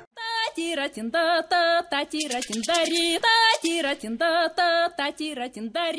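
Music: a high, wavering voice singing a run of short, choppy notes, with a brief patch of fast high ticking near the middle.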